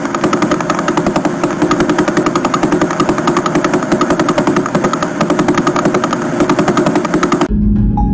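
A space sound played back as audio, spacecraft data converted to sound: a harsh, fast-pulsing buzz, steady throughout, that cuts off abruptly near the end and gives way to a lower hum.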